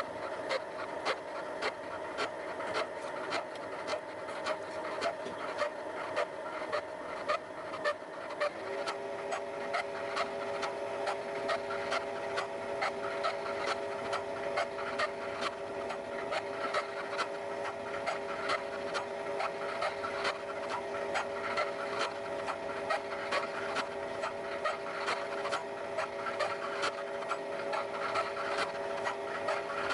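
A triple-start gear hob cutting the teeth of a worm wheel by free hobbing on a milling machine: a steady run of rhythmic cutting ticks, several a second, over the machine's steady whine, which shifts to a lower added tone about nine seconds in.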